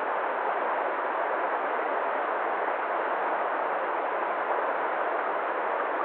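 Shallow stream running over stones: a steady, even rush of water with no change.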